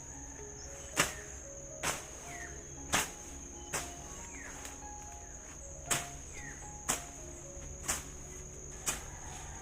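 Sharp strikes of a hand tool chopping at ground or vegetation, about one a second with a couple of gaps, over a steady high-pitched drone of insects.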